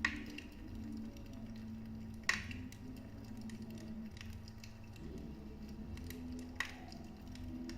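Wood fire burning in a fireplace: a steady low rumble with scattered small crackles and three sharp pops, at the start, after about two seconds and near the end.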